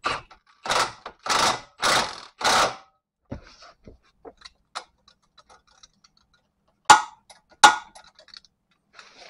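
Cordless impact wrench spinning a lock nut onto a tapered ball-joint stud in four short bursts. After that comes light ratchet clicking, then two sharp metallic clicks a little over a second apart, about seven seconds in.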